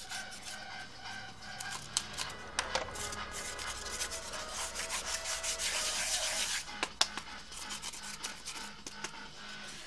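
Polystyrene packing foam being carved and rubbed by hand with a small knife: a dry rasping scrape, loudest in the middle, with a few sharp clicks.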